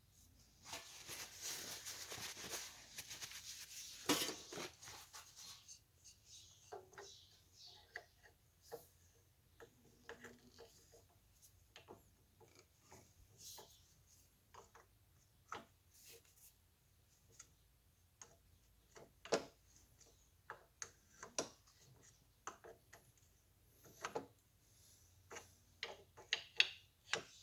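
Small metal parts and hand tools being handled at a workbench: scattered clicks, taps and clinks, with a few seconds of rustling hiss near the start.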